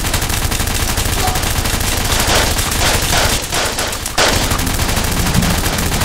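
Dubbed-in gunfire sound effects for a G36 rifle and a Glock pistol: rapid automatic fire, shot after shot with hardly a break, dipping briefly just after four seconds in. This is a mix cut down to two gun sounds; the G36's is an Uzi combined with another machine gun, and the Glock's is taken from a P90.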